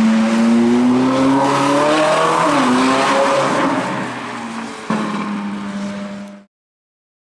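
Ferrari 458 Italia's V8 engine accelerating inside a tunnel, the note rising in pitch as the car approaches, then dropping as it passes and pulls away. About five seconds in the sound jumps suddenly louder, and it cuts off abruptly near the end.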